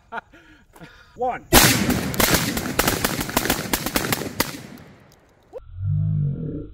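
A man laughs briefly, then about a second and a half in a rapid string of 12-gauge shots from a Beretta 1301 semi-automatic shotgun starts, the reports crowding together and echoing for about three seconds before fading. A low rumble follows near the end.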